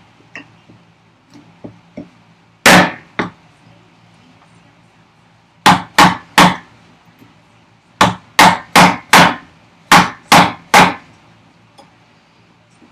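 Large timber-framing chisel struck with sharp blows, chopping into ash to deepen the walls of a housing dado. A single blow comes first, then groups of three or four quick strikes with short pauses between.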